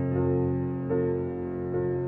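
Ambient keyboard music: soft sustained chords, with new notes struck about a second in and again near the end.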